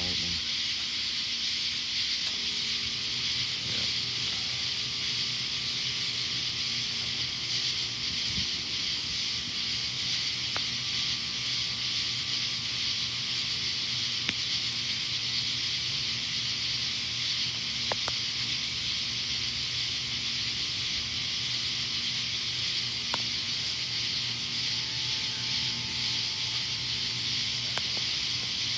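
Steady outdoor night ambience: an even high hiss, with a high pulsing buzz repeating about every second and a half and a faint low hum underneath. No thunder is heard.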